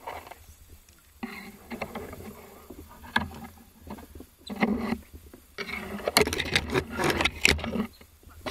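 Water sloshing and splashing in irregular bursts, with knocks and scrapes, as a spearfisher moves through shallow water among submerged branches. It is busiest in the second half.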